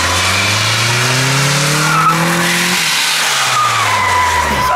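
Old Toyota Camry sedan, running on baby oil in place of engine oil, driven hard through a turn. Its engine revs up for nearly three seconds and then drops off while the tyres squeal.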